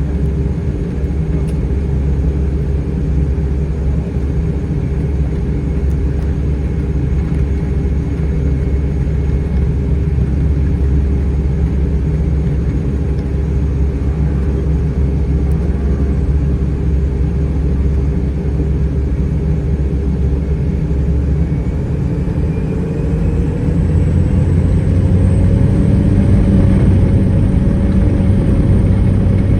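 Cessna 208 Caravan's Pratt & Whitney PT6A turboprop running with a steady drone, then rising in pitch and getting louder a little over 20 seconds in as power is brought up.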